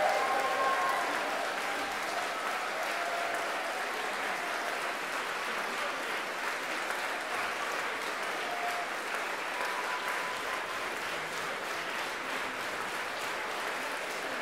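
Audience applauding steadily at the end of a performance, a dense, even clapping that holds its level throughout.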